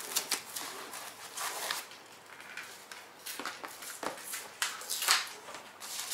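Packaging being handled, plastic wrap and foam inserts rustling and crinkling in irregular bursts with scattered sharp crackles.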